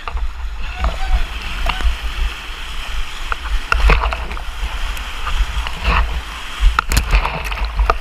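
River whitewater rushing and churning right at the camera, with a steady low rumble of water buffeting the microphone. Sharp splashes break over it about four seconds in and again around six to seven seconds.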